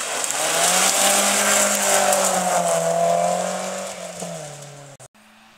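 Rally car's engine held at high revs as the car passes on a gravel road, over a loud hiss of tyres and thrown gravel. The sound swells, fades as the car moves off, and cuts off suddenly about five seconds in.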